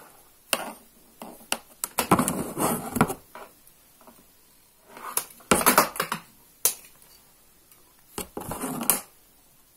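Insulated copper wires being handled and bent by hand, giving irregular clicks and short crackling scrapes in three bursts.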